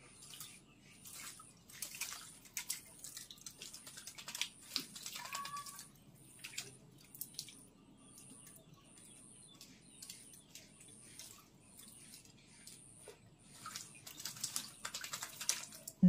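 Javan myna bathing in a plastic dipper of water, splashing and flicking water in bouts of small splashes and drips, busiest in the first several seconds and again near the end.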